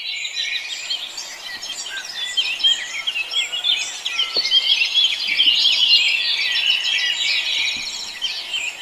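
A dense chorus of many small birds chirping and twittering, with many short overlapping calls.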